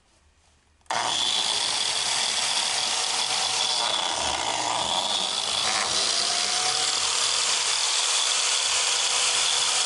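Biscuit joiner running, its spinning blade cutting a slot into the edge of a wooden board. The motor starts suddenly about a second in and then runs steadily.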